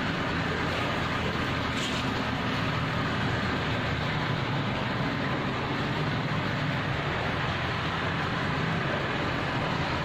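A boat's engine running steadily.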